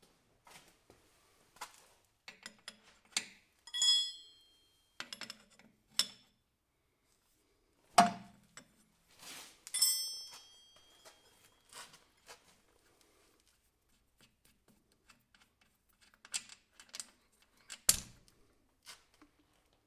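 Metal tools and hydraulic coupler fittings being handled on a workbench: scattered clinks, taps and knocks. Twice, about 4 and 10 seconds in, a piece of metal rings briefly, and the loudest knocks come about 8 and 18 seconds in.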